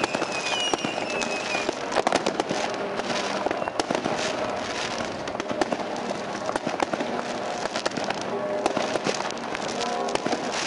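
Many fireworks going off at once: a constant crackle of bangs and firecrackers. Several whistling fireworks whistle with a slightly falling pitch and fade out about two seconds in.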